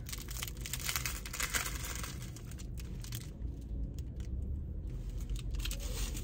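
Thin plastic film wrapper of a triangle kimbap crinkling as it is pulled off by hand. The crackling is busiest in the first three seconds, eases off, then picks up again near the end.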